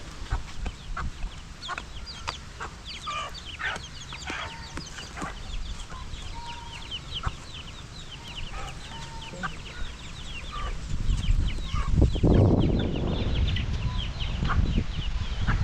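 Chickens clucking with short, repeated calls. About twelve seconds in there is a louder rustling rush of noise lasting a second or two.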